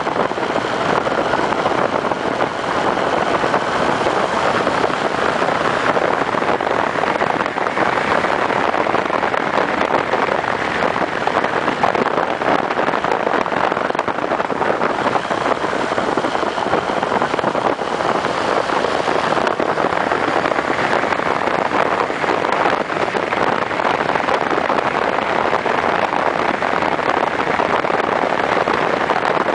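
Honda CB1300 motorcycle riding at a steady cruising speed: a constant rush of wind and road noise with the engine running beneath it.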